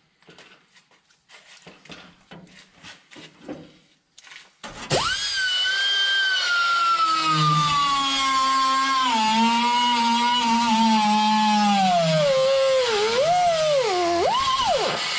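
Air-powered cut-off tool with a small abrasive wheel starting up after a few faint handling clicks, then cutting through rusted sheet steel with a loud whine. The whine sinks slowly in pitch as the wheel is pressed into the metal, dips sharply twice near the end under heavier load, and climbs back when the load eases.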